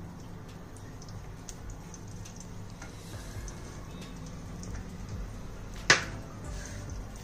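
A wooden spatula works solid ghee around a metal kadhai, giving light scrapes and clicks over a low steady hum. About six seconds in there is one sharp knock.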